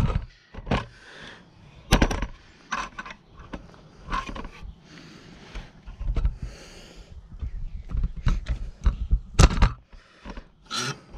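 Wheel nuts on a car's rear wheel being loosened and turned off with a hand tool: irregular metallic knocks, clicks and scrapes.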